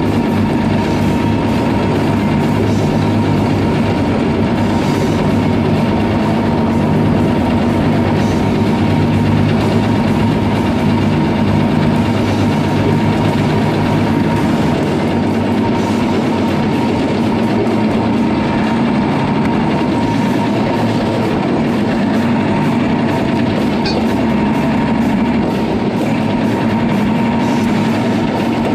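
Mercedes-Benz Unimog truck's diesel engine running steadily as the truck is driven, with a thin steady whine above the engine's drone.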